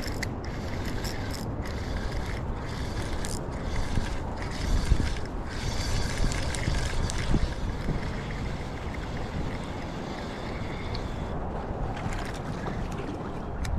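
Steady wind noise buffeting the microphone over the rush of river water.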